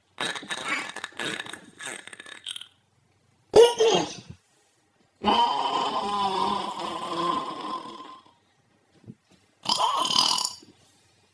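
A person's burps, pitched up with a chipmunk-style effect: four separate burps with silent gaps between them. The second is short and the loudest, and the third is long and drawn out, about three seconds.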